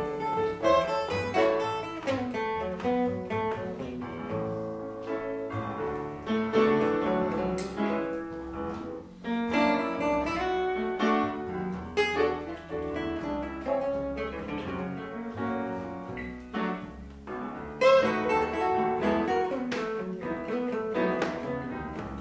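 Live jazz instrumental break on upright piano, plucked double bass and acoustic guitar, with no vocals.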